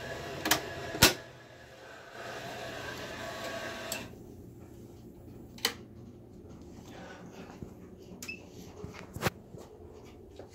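A steady machine hum with several held tones that drops away about four seconds in, with a few sharp knocks or clicks over it, the loudest about a second in.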